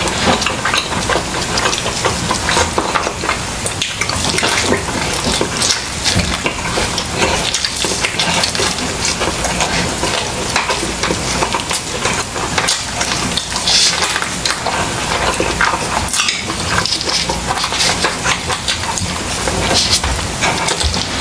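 Close-miked chewing of grilled chicken: a continuous wet crackle of small mouth clicks and smacks, mixed with the rustle of plastic-gloved hands tearing the meat apart.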